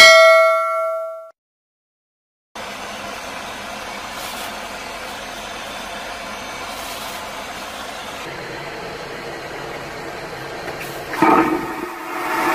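A bell-like notification chime rings at the start and fades within about a second. After a short silence comes a steady cabin drone, and about eleven seconds in an airplane vacuum toilet flushes with a loud rushing whoosh and a tonal whine that keeps going.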